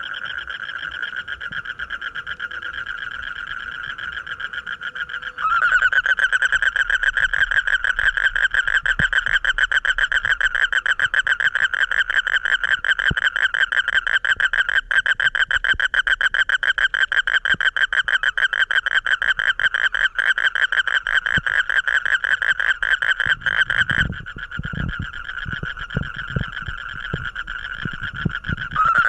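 Frog calling at night with a continuous rapid pulsed trill. It gets louder about five seconds in and drops back briefly after about 24 s, with some low thumps at that point.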